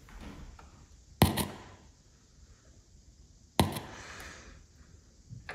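Two sharp pops about two and a half seconds apart from a powered speaker as it is switched on and off, each with a brief fading tail.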